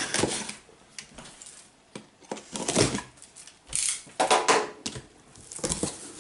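Cardboard box being opened: a blade slitting the packing tape along the lid seam, then the flaps being pulled apart, in a few separate scraping, crackling bursts.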